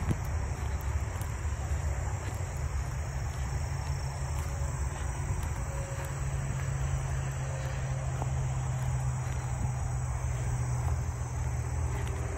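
Steady chorus of crickets and other insects, an even high-pitched buzz, over a low steady rumble that grows stronger about halfway through.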